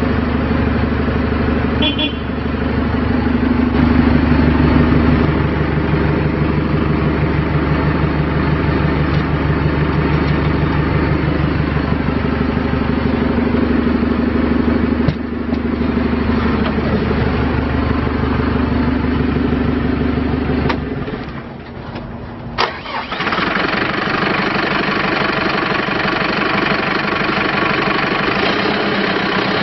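Diesel engine of a JCB 3CX14 backhoe loader running steadily, its pitch shifting a few times. About two-thirds of the way in the sound drops away briefly. After a sharp click it comes back running with a different tone.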